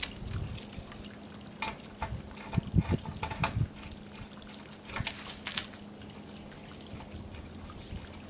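Scattered clicks and knocks of a garden hose fitting being handled and screwed onto the outlet elbow of a roof-rack-mounted Road Shower solar shower tank, with a little water trickling from the disconnected hose.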